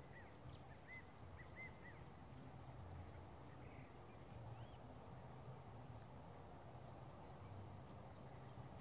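Near silence: faint outdoor pond ambience with a few short, high chirps from a small animal in the first couple of seconds and one more about four and a half seconds in.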